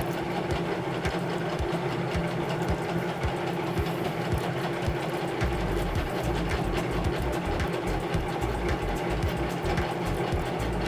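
A steady mechanical hum with a fast, even run of soft ticks, like a small machine running; a deeper low rumble joins about halfway through.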